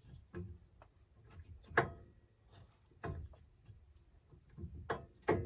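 A few separate metal knocks and clinks as a shock mounting bolt is worked through its mount under a C3 Corvette, the sharpest about two seconds in and a quick pair near the end.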